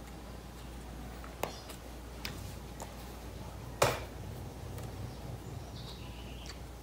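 A few light clicks and knocks from hands working cord and small tools while a knot is pulled tight, with one sharper knock just under four seconds in.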